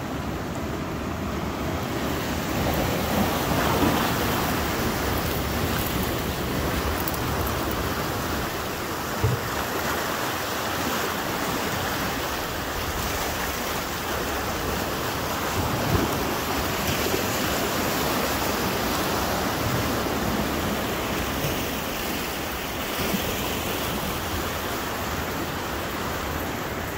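Ocean surf washing against a rocky shore: a steady rush of waves.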